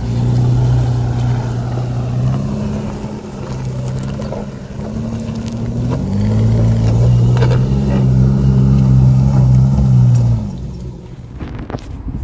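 Jeep Liberty KJ's engine running under load on an off-road climb, its pitch stepping up and down as it revs. It is loudest in the second half and drops away about ten and a half seconds in.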